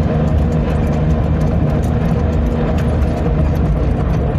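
Car engine running steadily under load as the car climbs a steep mountain road, heard from inside the cabin.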